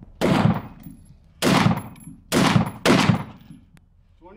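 Rifle fired four single shots, about a second apart at first and coming quicker toward the end, each report trailing off in a long echo.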